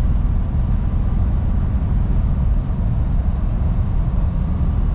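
Volkswagen Kombi's rear-mounted engine and road noise heard from inside the cab while driving at steady speed, a constant low rumble.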